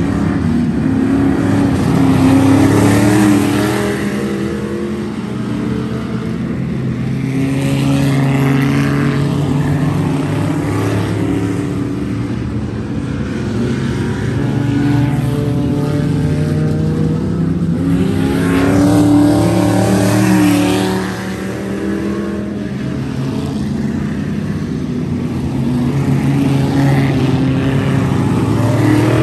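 Race car engines lapping an oval track, their pitch rising and falling as the cars pass, swelling loud five times.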